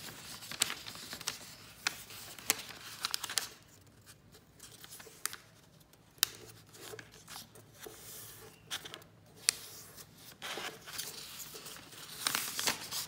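A sheet of lined notebook paper being folded by hand into a paper airplane: rustling and crinkling, with scattered sharp crackles as creases are pressed in. It goes quieter for a couple of seconds in the middle and rustles more busily near the end.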